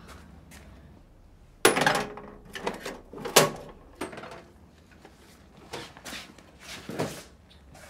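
Newspapers handled out of a delivery bag and pushed through a flat door's letterbox: a string of short paper rustles and metal flap clacks, the loudest between about one and a half and three and a half seconds in.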